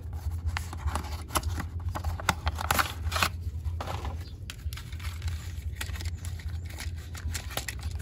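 A small cardboard toy box being opened by hand and its plastic insert tray slid out and handled, with rustling, scraping and many light clicks, a denser rustle about three seconds in, over a steady low hum.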